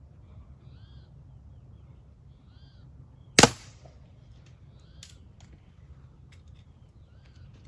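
A single shot from a Crosman 1377 multi-pump .177 pellet pistol, one sharp crack about three and a half seconds in, with a few faint clicks after it. A bird calls several times in the background.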